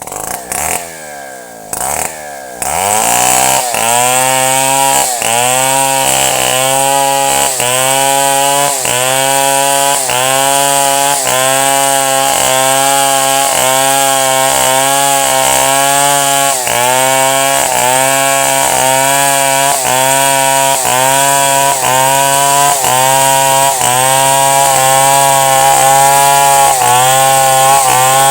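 Chainsaw engine picking up and revving in the first few seconds, then running at high speed with a short dip in pitch about every second.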